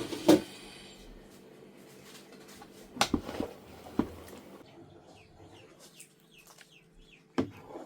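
Chickens clucking and chirping, with quick high falling calls through the second half and a few sharp knocks about three, four and seven seconds in.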